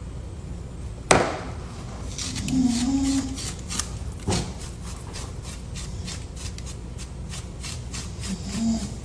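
A person snoring: a low snore about two and a half seconds in and another near the end. Two sharp knocks, one about a second in and one a little after four seconds, and faint rapid clicking in between.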